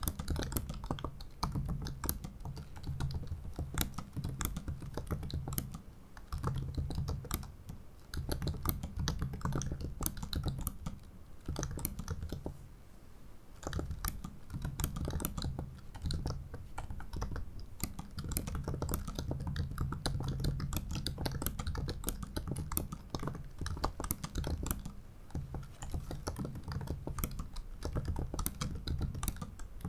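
Continuous typing on a 2017 MacBook Pro 15-inch's ultra-thin butterfly keyboard: a fast, steady stream of short key clicks, with a brief pause a little before halfway.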